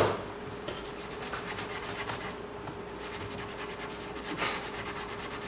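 A Scotch-Brite scouring pad, sprayed with cleaner, scrubbed in quick, even back-and-forth strokes over a metal two-stroke power valve part, rubbing off carbon deposits. A sharp click comes at the very start.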